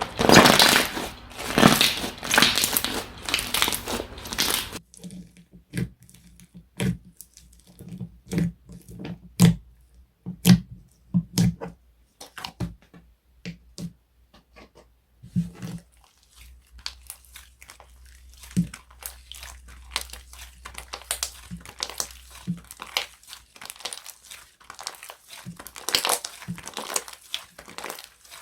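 Slime being squished and poked by hand: dense crackling and crinkling at first, then scattered sharp clicks and small pops as it is pressed, with crackling again near the end.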